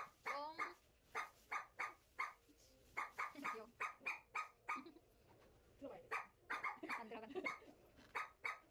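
Dog barking in quick runs of short barks, about three a second, with brief pauses between the runs.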